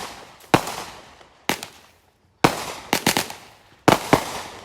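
Multi-shot consumer firework box firing the last shots of its run: sharp bangs at uneven spacing, about seven in all, each trailing off, with a quick cluster of them a little before three seconds in.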